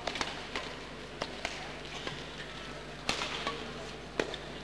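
Badminton doubles rally: racket strings striking the shuttlecock in sharp, quick hits every half second to a second, over a low steady hum.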